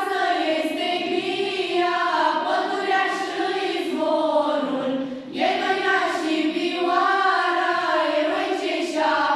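Girls' and children's choir singing a cappella, held sung phrases with a brief break for breath about five seconds in.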